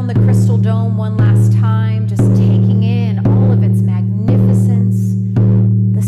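Meditation music: a deep drum struck steadily about once a second, each beat ringing out, with a higher gliding melody over it.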